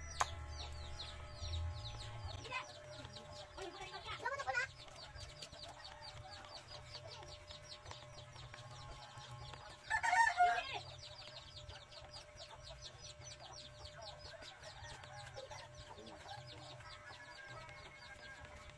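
Chickens calling: a short wavering call about four seconds in and a louder call about ten seconds in, over a fast, steady high chirping. A corded electric hair clipper hums at the start and stops after about two seconds.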